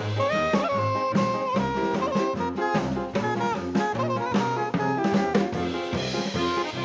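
Background jazz music: a horn melody over a drum kit keeping a steady beat.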